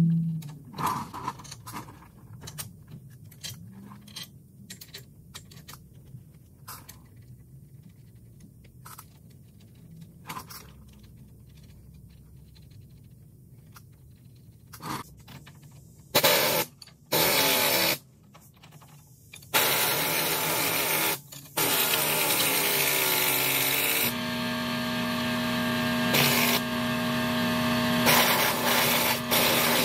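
Scattered light metallic clicks and knocks of hand work on a semi truck's steering knuckle, then an air impact wrench on an axle-nut socket at the spindle, running in short bursts about halfway through and then continuously near the end, where it is the loudest sound.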